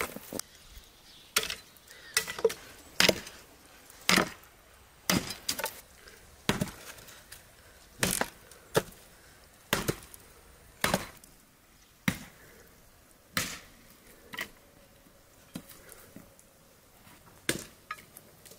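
An axe chopping firewood: sharp wooden strikes, about one a second, some in quick pairs.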